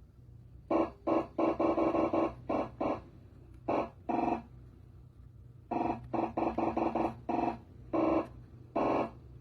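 Light-to-sound demonstration device sounding a buzzy electronic tone in short, irregular on-off bursts, with a steady low hum underneath.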